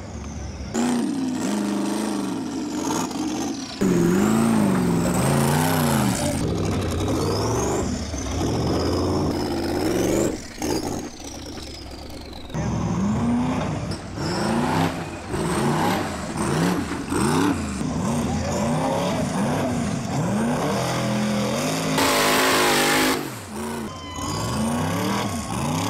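Rock-racing buggy's engine revving hard in repeated rising and falling bursts as it climbs the rocks, with a high whine rising and falling alongside. Near the end, a short, loud burst of hissing noise.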